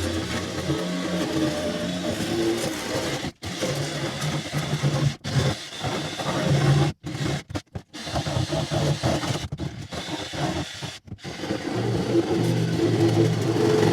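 Power saw cutting a circular hole through a fibreglass boat deck, its motor running hard and stopping and restarting several times in short breaks.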